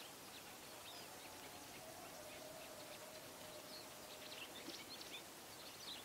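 White wagtail calling softly: short, faint high chirps, coming more often near the end. A faint steady hum runs for a few seconds in the middle.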